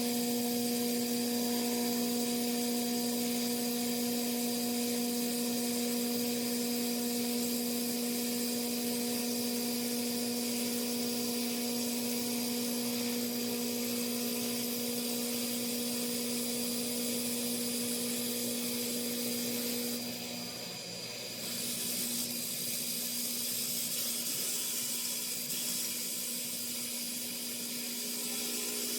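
CNC woodworking machine running and cutting wood: a steady spindle whine over a continuous hissing cutting noise. About two-thirds of the way through the whine drops away and the level dips briefly, then the hissing carries on.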